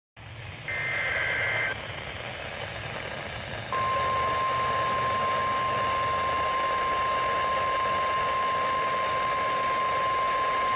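NOAA Weather Radio Emergency Alert System activation over radio hiss. About a second in there is a one-second screechy two-tone SAME data burst. About three and a half seconds in, the steady 1050 Hz weather radio warning alarm tone begins and holds, marking a severe thunderstorm warning.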